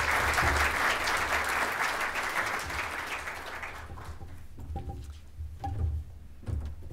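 Audience applauding, the clapping dying away about four seconds in, followed by a few soft thumps.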